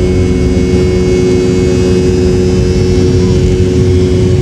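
Airliner engines heard from inside the passenger cabin: a loud, steady hum with several steady tones over a rush of noise.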